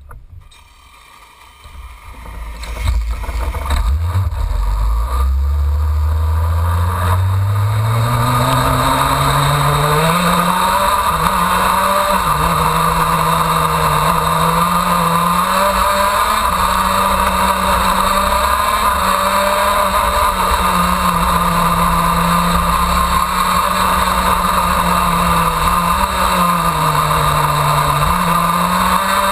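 125 cc two-stroke KZ2 shifter kart engine heard onboard. It grows loud about three seconds in and climbs steadily in pitch as the kart pulls away, then runs hard, its pitch repeatedly dipping and climbing back.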